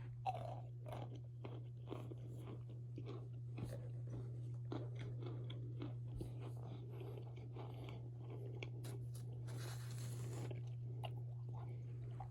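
Packed cornstarch being crunched, a dense, irregular run of small powdery crunches with a longer crumbling hiss about ten seconds in.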